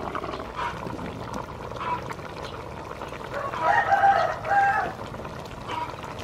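A rooster crowing once, a pitched call lasting about a second and a half that starts about three and a half seconds in, over steady background noise.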